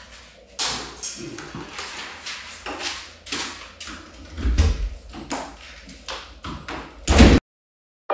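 Footsteps on a hard floor and a door being handled and opened, ending in a loud thump about seven seconds in, after which the sound cuts off suddenly.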